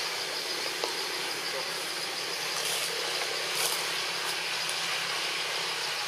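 Steady high trilling of insects over a constant hiss of outdoor background noise, with a single sharp click about a second in and two brief high hissing swells around the middle.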